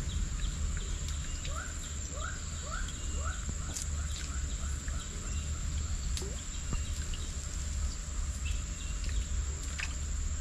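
Tropical streamside ambience: a bird gives short rising chirps about twice a second for a couple of seconds. Under it run a steady high-pitched insect whine and a low rumble, with a few faint clicks.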